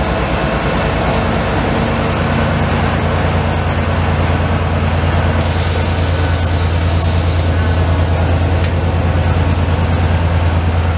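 Diesel locomotive of an Israel Railways train rolling slowly past, its engine running with a steady low drone. A hiss lasts about two seconds midway.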